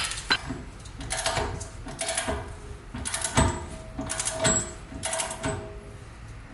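Hand wrench working on a seized Toyota Prius rear hub assembly: rhythmic metallic clicking and scraping strokes, about one a second. The hub is still stuck fast.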